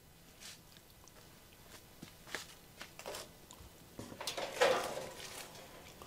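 Faint clicks, ticks and rustles of hands working on a propane wall heater's sheet-metal casing, with a louder scraping rustle about four and a half seconds in.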